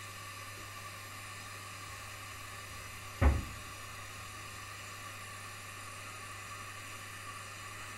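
A steady hiss with a low hum underneath, and one sharp knock about three seconds in.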